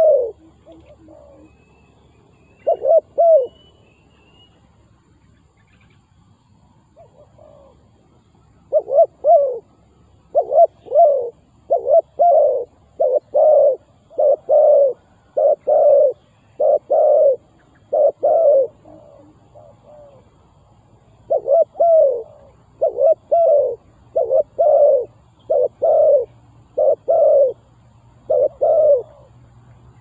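Spotted dove cooing in short phrases of two or three coos. There are a few phrases at first, then they repeat almost without pause from about nine seconds in.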